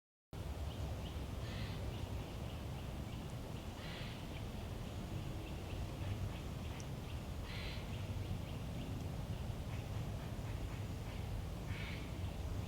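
Woodland ambience: a bird gives a short, harsh call four times, a few seconds apart, over a steady low rumble, with faint small-bird chatter between the calls. The sound begins abruptly a moment in.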